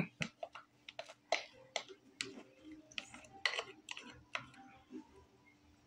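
Spatula scraping and tapping against the inside of a mixing bowl as the last cake batter is scraped out: a run of irregular light clicks and scrapes, a few a second, thinning out near the end, over a faint steady hum.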